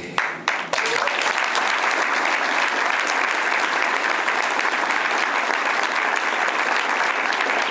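Crowd applauding, breaking out just after the start and holding steady.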